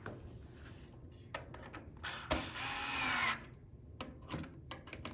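Power drill driving a fastener to tighten the cart's bottom fittings: a few light clicks, then the drill whines for just over a second about two seconds in, with more clicks near the end.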